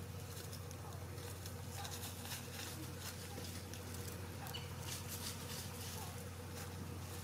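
Dry leaf litter crackling and rustling in short, irregular bursts as a silver Sebright bantam hen scratches and pecks through it, with a few faint soft clucks. A steady low hum runs underneath.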